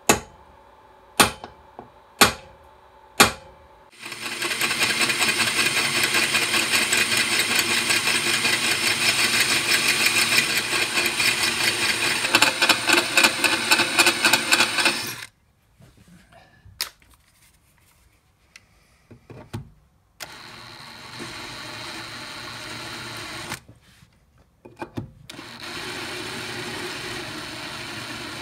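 Four sharp hammer taps on a hardened transfer punch, marking hole centres on steel box section. Then a DeWalt cordless drill drilling into the steel: one long loud run of about eleven seconds, then two shorter, quieter runs.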